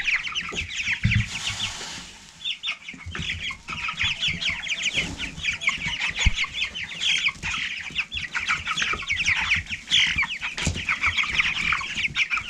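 A flock of four-week-old meat king broiler chicks peeping continuously, with many short falling calls overlapping, and a few soft knocks among them.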